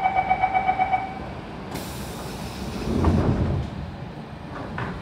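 Siemens C651 train's door-closing warning: rapid high beeps, about eight a second, for just over a second. A short hiss follows, then the doors slide shut with a thud about three seconds in.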